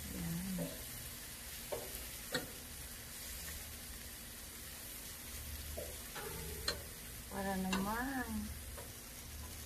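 Chicken drumsticks sizzling on a barbecue grill as a steady hiss while they are turned with metal tongs, with a few sharp clicks of the tongs on the grate.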